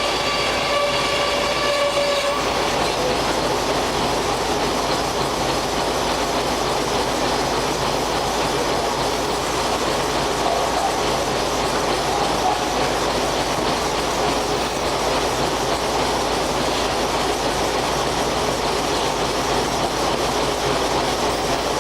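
Steam-powered sawmill running with its large circular saw blade cutting lumber: a loud, steady mechanical noise. In the first two seconds a high steady tone with overtones sounds over it, then stops.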